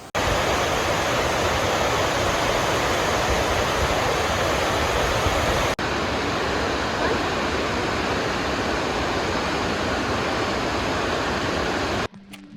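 Wilhelmina Falls, a steady rush of falling water, with a brief break about six seconds in. The water sound cuts off suddenly near the end as music begins.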